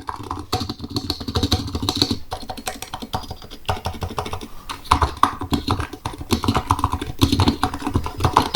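Typing on a Razer Huntsman Mini mechanical keyboard with red linear optical switches: rapid, dense key presses in quick runs, with short pauses between runs.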